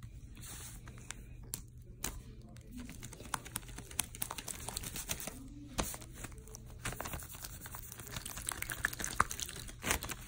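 Hands squishing and pressing a blob of soft, jiggly slime, making a dense, irregular run of small sticky clicks, pops and crackles, with a few louder snaps near the end.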